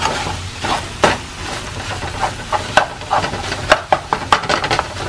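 Scrambled eggs sizzling in a nonstick frying pan while a spatula stirs and scrapes them, with many irregular clicks and taps of the utensil against the pan.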